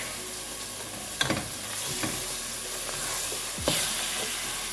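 Chopped onion, celery and bell pepper sizzling in a dark roux while being stirred, with two sharper scrapes of the utensil against the pot.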